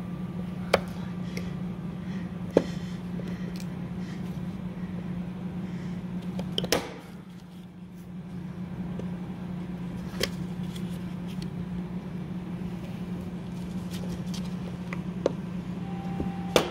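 A handful of sharp metal clicks, spaced seconds apart, as retaining-ring pliers work at the snap ring on a transmission gear's synchro assembly, over a steady low hum.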